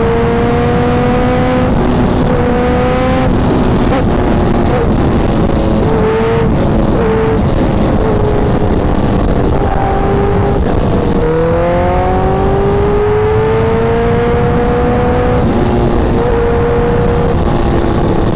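Honda CBR1000RR sport bike's inline-four engine at highway speed, heard from the rider's seat under steady wind rush. Its pitch climbs slowly in stretches, drops about eleven seconds in, then rises again.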